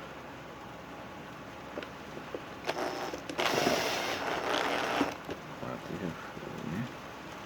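Handling noise from assembling a speaker box: scattered small clicks and knocks of parts and tools, with a burst of scraping or rustling about three and a half seconds in that lasts under two seconds.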